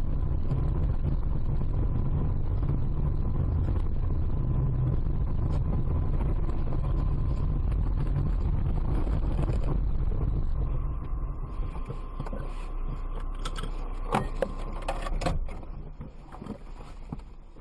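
Steady low rumble of a car's engine and road noise heard from inside the moving car. It drops away about ten seconds in, and a few sharp knocks follow near the end.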